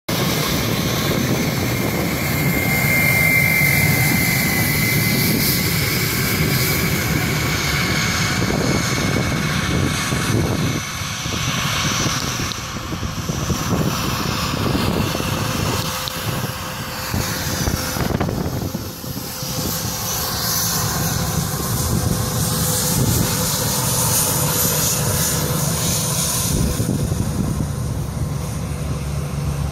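Twin Rolls-Royce BR710 turbofans of a Bombardier Global 5000 business jet running as it taxis past: a steady rumble with a high jet whine over it, the whine strongest about three seconds in.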